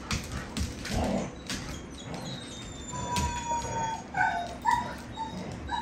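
Two dogs, a hound and a lab-hound mix, playing tug of war over a toy. Scattered sharp clicks, a drawn-out high whine about three seconds in, and a few short yips near the end.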